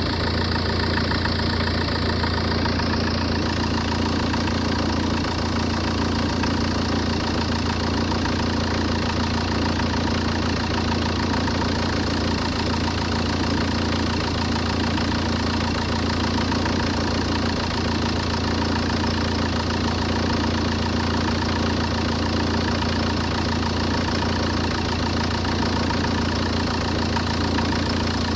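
Peugeot 406's 2.0 HDi four-cylinder diesel engine idling steadily with a fast diesel clatter, in a car whose owner reports strange noises and unstable idling.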